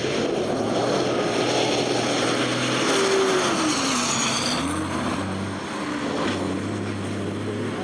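Renault rally truck's diesel engine running hard as the truck drives past. Its pitch dips about four seconds in, then picks up again.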